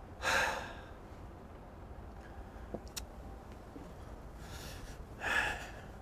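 A man breathing audibly twice, a short gasp-like breath just after the start and another about five seconds later, with a faint click about halfway between them.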